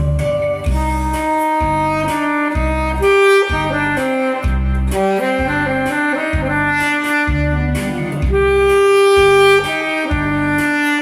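Saxophone playing a melody over a recorded backing track with a steady bass line, holding one long note near the end.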